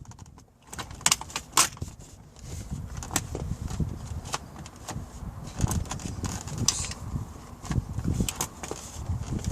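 Plastic centre-console trim being handled and pressed into place in a BMW E46: a run of sharp clicks, knocks and rattles as the USB port tray is fitted.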